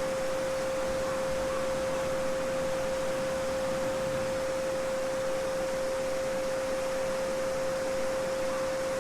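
A steady 528 Hz solfeggio sine tone, held without change, over the continuous babbling of a small brook.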